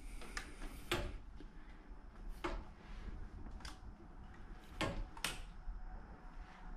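Irregular footsteps and wooden knocks on a board laid across broken wooden stair treads, a few separate hits spread out, the sharpest about a second in and around five seconds in.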